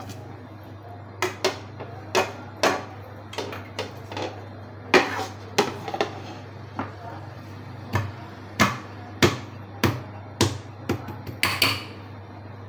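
A serving bowl and a square plate knocking and clattering against each other and the kitchen counter as they are handled and turned over to unmould rice, in a string of irregular sharp knocks over a steady low hum.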